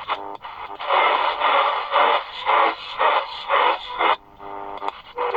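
XHDATA D-219 pocket radio's speaker playing a medium-wave AM station: muffled, noisy broadcast audio in short surges, with brief quiet gaps near the start and about four seconds in.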